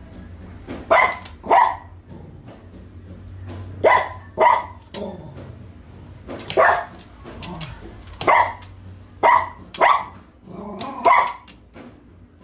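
Dog barking repeatedly in sharp, loud barks that often come in pairs, about nine in all, over a steady low hum.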